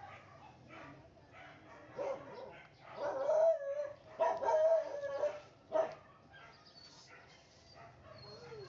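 A dog barking and howling: a short bark, then two long drawn-out howls, then another short bark.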